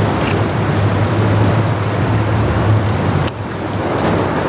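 Small tiller outboard motor running with a steady low hum under the rush of fast-flowing river water. The engine hum drops out about three seconds in, leaving only the rushing water.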